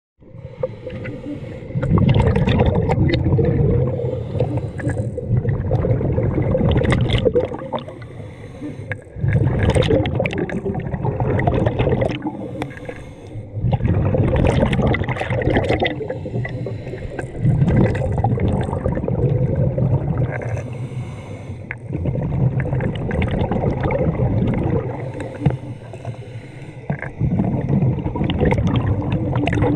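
Scuba diver's regulator breathing underwater: long gurgling rushes of exhaled bubbles every four seconds or so, with quieter inhales between.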